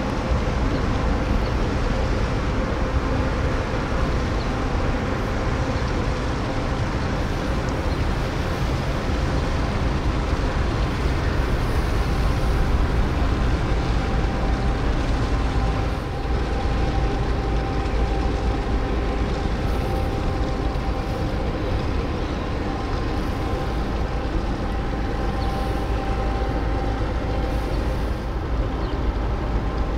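Ferry Etretat's engines and machinery running as the ship arrives in port: a steady low rumble with a few faint humming tones above it.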